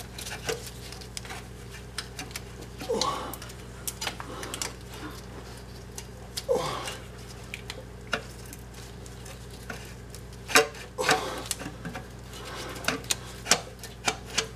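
Scattered metallic clinks and knocks as a loosened starter motor is worked by hand against the surrounding engine and frame parts, with a cluster of sharper knocks near the end; the starter is stuck and won't slide out. A steady low hum runs underneath.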